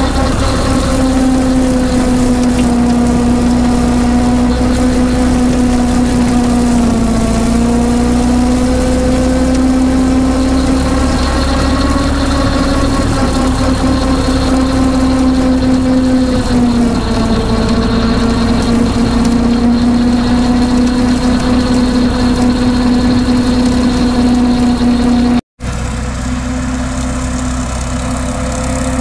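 Ford 8N tractor's four-cylinder flathead engine running steadily under load while it pulls a PTO-driven rotary brush hog mower through tall grass, heard close up from the mower. A thin steady high whine joins about a third of the way in. Near the end the sound cuts out for an instant, and the engine is then heard from farther off.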